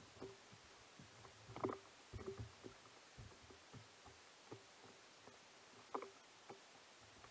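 Near silence with a few faint, short knocks and taps, the loudest a little under two seconds in and again about six seconds in.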